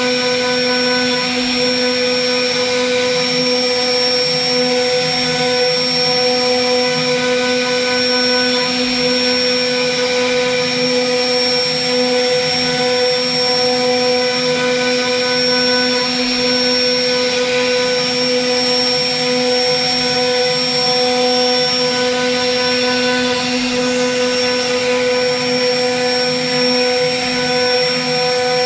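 CNC router spindle running at steady speed while its cutter carves a relief pattern into a wooden panel: a steady whine of several tones over the noise of the bit chewing through wood.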